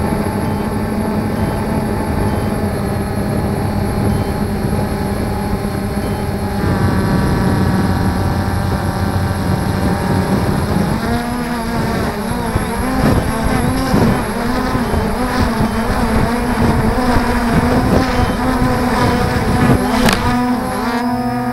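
Multirotor drone's motors and propellers whining, close to the onboard camera's microphone. The pitch shifts and wavers as the drone manoeuvres, then falls near the end as it comes down close to the ground.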